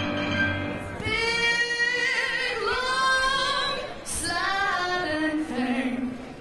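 A woman sings a slow phrase with wide vibrato into a microphone while accompanying herself on a grand piano. A held piano chord rings through the first second before her voice enters.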